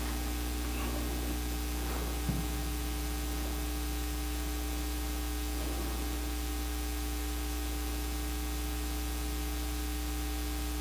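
Steady electrical mains hum with a constant hiss, and a single soft knock about two seconds in.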